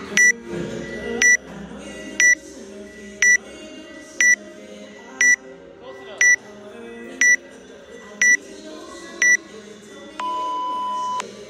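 Workout countdown timer beeping once a second: ten short high beeps, then one long, lower beep of about a second that signals the start of the workout.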